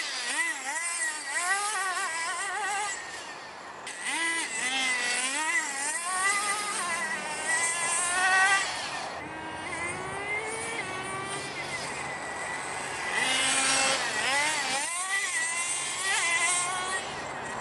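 Small nitro (glow-fuel two-stroke) RC car engines revving up and down as the cars are driven, a high whine that rises and falls again and again in pitch.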